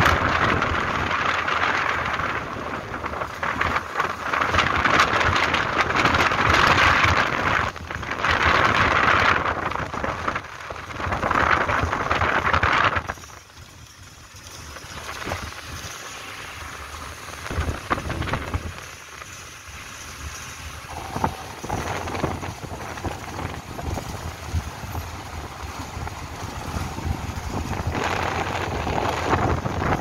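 Car driving on an unpaved dirt road: tyre and grit noise with wind rush, loud for the first half and quieter after, with scattered small knocks and rattles.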